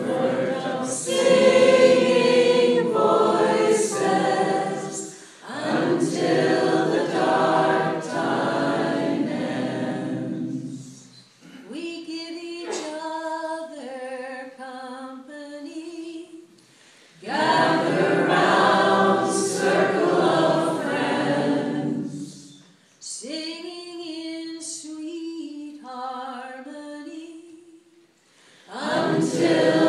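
Five women's voices singing a cappella in close harmony. Full-group passages alternate with two quieter stretches in which one voice leads almost alone before the group comes back in.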